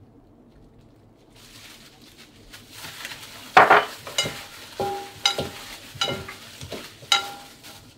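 Gloved hands mixing chicken pieces into a wet marinade in a glass bowl: squishing and plastic-glove rustling that starts after about a second and a half, with several short sharp knocks and brief ringing sounds off the bowl in the second half.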